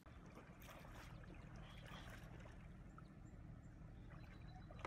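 Near silence: a faint steady low rumble with faint water sounds from a shallow pond.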